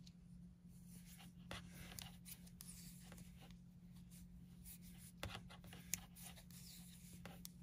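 Faint, irregular clicks and scratchy rubbing of metal knitting needles working bulky cotton yarn stitch by stitch, with a couple of sharper needle clicks a little past halfway.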